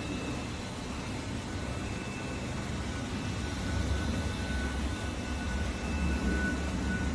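Robot vacuum cleaner running as it cleans the floor: a steady motor and brush hum with a faint high whine, getting a little louder and deeper from about four seconds in.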